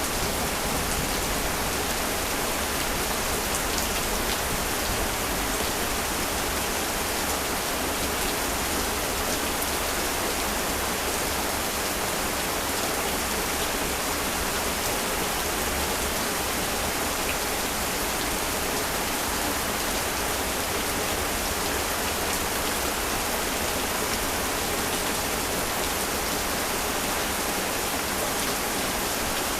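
Heavy rain falling steadily, an even hiss of drops on surfaces.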